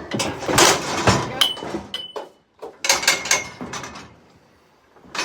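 Steel cattle chute and its gates rattling and clanging as a cow is worked through, in two bouts of clatter, the first about a second long at the start and the second around three seconds in.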